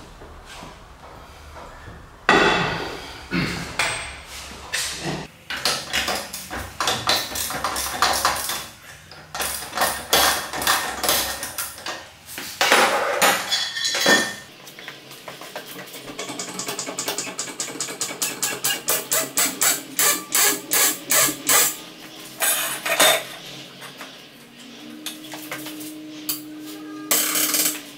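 Metal clanks and knocks from hand tools and a floor jack while a car's rear wheel is worked on and the car is raised onto a jack stand, with a run of evenly spaced strokes about twice a second in the middle.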